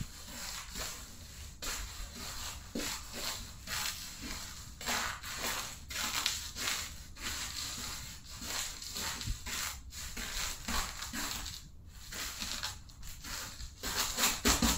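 Chips crunching and crackling under Converse sneaker soles as they are stepped on and ground, in many irregular bursts. Near the end, music with drums comes in.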